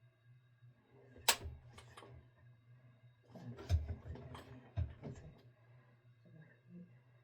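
Handling noises: a sharp click about a second in, then a cluster of clicks and knocks with dull thuds between about three and five and a half seconds, over a steady low hum.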